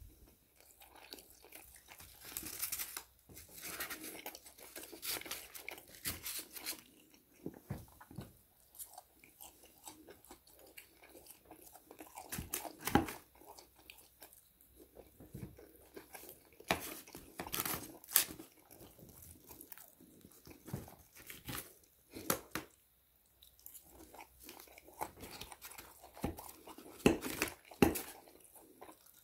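Close-up chewing and crunching on breaded fried chicken, irregular throughout, with a few louder sharp crunches or clicks.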